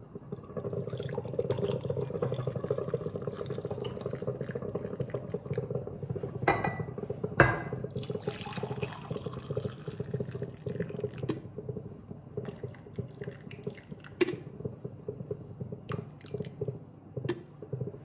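Freshly brewed filter coffee poured in a steady stream from a glass carafe into mugs, the stream splashing into the coffee already in the mug. A few sharp knocks come as the carafe and mugs touch and are moved.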